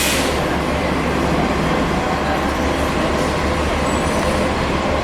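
Steady low rumble and noise of a moving vehicle heard from inside, with a sharp click at the very start.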